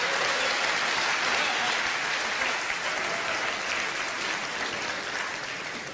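A large audience applauding, the clapping fading gradually toward the end.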